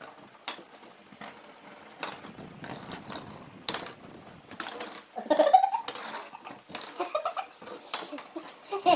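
Small plastic spinning tops clicking and tapping on a hard tabletop as they are twirled and spin against one another. People laugh loudly about five seconds in and again a couple of seconds later.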